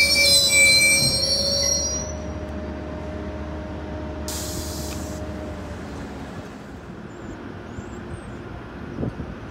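Metrolink bilevel passenger train's wheels and brakes squealing as it slows along the platform. The high squeal dies away about two seconds in, and a lower tone lingers until about six seconds. A short hiss comes about four seconds in.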